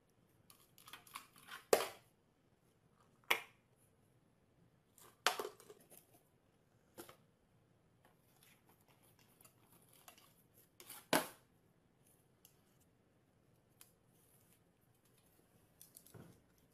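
A small dog pawing and nosing a cardboard box and a tin on a glass-topped table: a few sharp knocks and scrapes, the loudest about two seconds in and again near eleven seconds, with faint rustling between.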